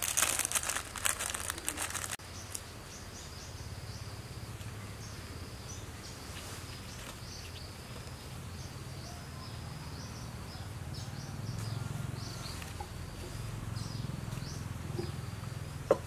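Banana leaf crinkling and rustling as sticky rice is spooned onto it and wrapped, for about the first two seconds. Then outdoor ambience: a steady low hum with many short, high chirps, and a single sharp click near the end.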